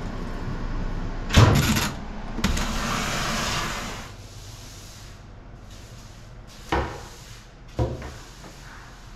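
Top-loading washing machine shut with a loud bang about a second in and a second knock after it, over a steady rush of water filling the drum that stops about four seconds in. Then a broom and dustpan knock twice on the hard floor, about a second apart, during sweeping.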